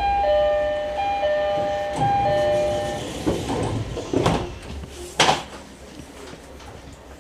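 Train door chime on a JR East E131 series train: a two-note electronic ding-dong, high then low, sounding three times over about three seconds. It is followed by two sharp clicks in the cab.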